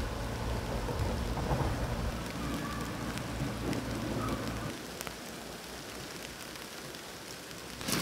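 Sleet or snow grains pattering steadily on a tent fly, with faint scattered ticks. A low rumble sits under the first half and stops a little past halfway.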